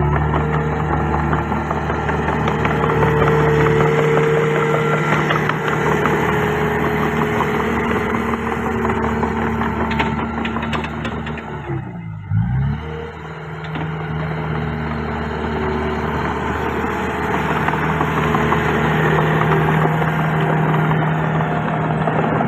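Diesel engine of a Komatsu D31PX crawler bulldozer running steadily at work. About halfway through, the engine note briefly sags in pitch and level, then picks back up.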